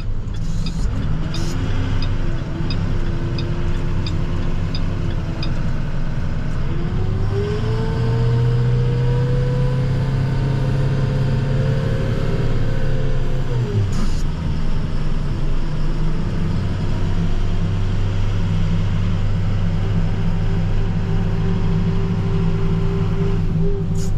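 Plow truck's engine running as the truck drives. Its pitch climbs slowly from about 7 seconds in, then drops suddenly about 14 seconds in before settling to a steady hum. Light ticking comes about twice a second in the first few seconds.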